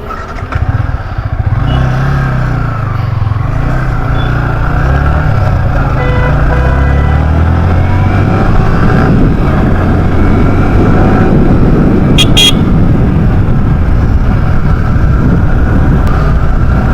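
Yamaha R15's single-cylinder engine pulling away, its pitch rising and dropping through the gear changes. It then settles into a steady rush of engine and wind noise at riding speed. There is a brief beep about twelve seconds in.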